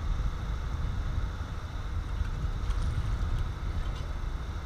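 Low, fluctuating rumble of wind buffeting the microphone.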